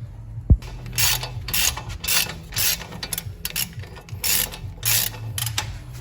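Hand ratchet wrench cranked back and forth to tighten a nut, a run of ratcheting strokes at about two a second, with one sharp knock near the start.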